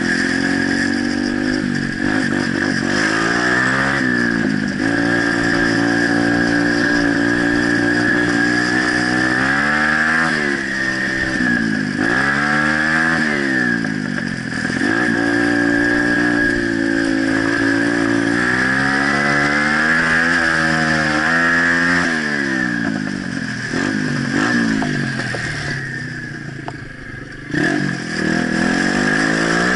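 Pit bike's small single-cylinder engine running under way, its revs climbing and falling over and over as the throttle is opened and closed. Near the end the throttle shuts briefly and the engine drops to a lower, quieter note before pulling again.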